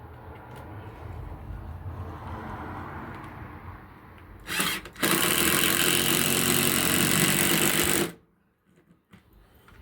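A power tool working on the porch lumber: a moderate mechanical hum, a short burst about four and a half seconds in, then a loud run of about three seconds that cuts off abruptly.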